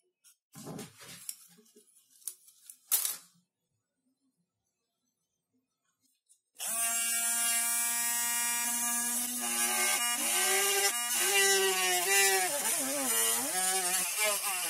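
A Hammer Flex rotary tool drilling through a popsicle stick: a steady high motor whine that starts suddenly about halfway through, its pitch dipping and wobbling under load as the bit bores into the wood. Before it, a few light knocks of wooden sticks being handled.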